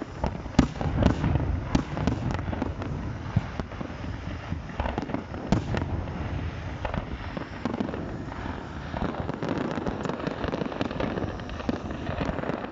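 Fireworks display: a continuous irregular string of bangs, pops and crackles from aerial shells bursting, over a low rumble. The loudest bangs come about a second in.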